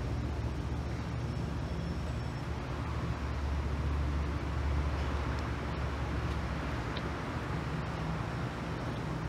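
Steady low rumble with a hiss over it, like distant traffic noise outdoors.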